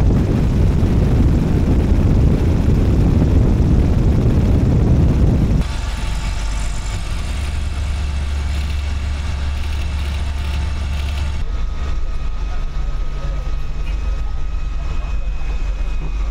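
Cabin noise of a Zeppelin NT airship in flight: the steady drone of its 200-horsepower propeller engines and rushing air. A heavy low rush for the first five seconds or so changes abruptly to a steadier, lower hum with faint whining tones, and changes again around eleven seconds in.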